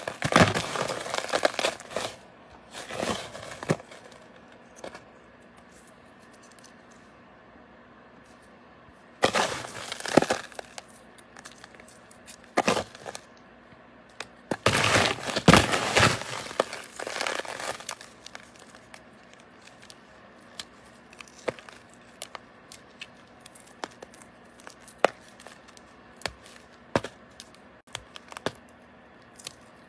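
Homemade paradichlorobenzene moth bar crushed and crumbled by hand: crisp crunching and crackling of the crystals in several bursts, the loudest about halfway through, then scattered single cracks.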